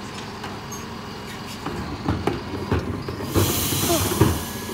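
Bin lorry collecting recycling: a steady low running noise under knocks and clatter of wheelie bins being emptied on the rear lifters and handled, with a few short squeaks. A loud hiss comes in about three seconds in and runs on.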